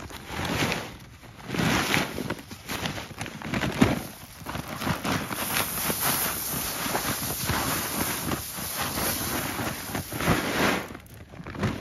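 Shelled corn pouring out of a feed sack onto snow: a few bursts as the sack is tipped and shaken, then a steady rushing stream of kernels for about six seconds that stops near the end.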